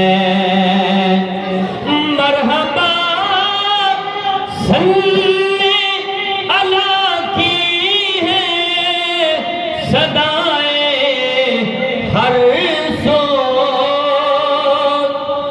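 Male voice singing a naat in long, drawn-out wavering notes.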